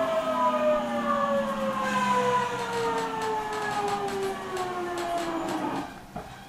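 Electric train's traction motor whine (JR 373-series EMU, MT68 motors) falling steadily in pitch as the train brakes, then dying away about six seconds in as it nearly stops. This car, KuMoHa 373-11, is noted for an abnormal running noise.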